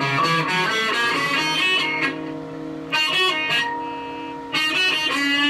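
Stratocaster electric guitar played on the in-between bridge and middle pickup setting: a quick run of picked notes, then chords struck about three seconds in and again near the end, left to ring.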